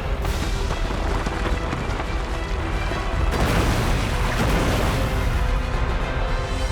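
Cartoon score music over a steady low rumble, with a louder noisy swell about three and a half seconds in.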